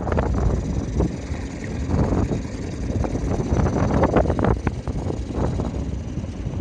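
Strong gusty wind buffeting the microphone, with choppy waves splashing and slapping against the hull of a small sailing dinghy in irregular surges.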